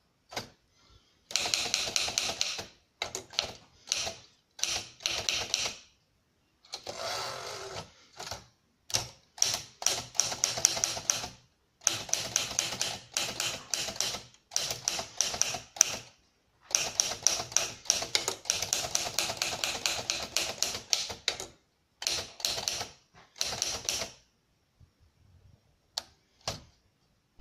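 1956 Remington Travel-Riter manual portable typewriter being typed on: fast runs of key strikes in bursts of one to two seconds with short pauses between. The typing stops a little before the end, leaving a few lone clicks.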